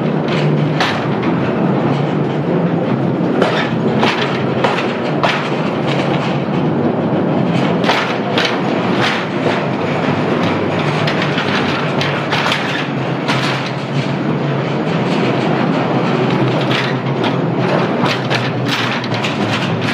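Mine train cars rolling along the rails through a rock tunnel: a steady, loud rattle and rumble of wheels on track, with frequent irregular clacks and knocks.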